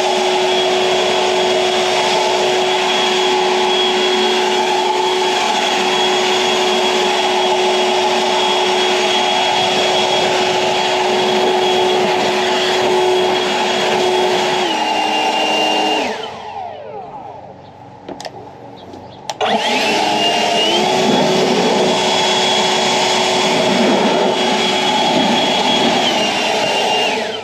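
EGO 56V LB7650 cordless leaf blower running at full speed with a steady high whine over the rush of air. It steps down slightly in pitch, winds down about two-thirds of the way through, and after a few seconds off it spins back up with a rising whine. It steps down again and winds down at the end.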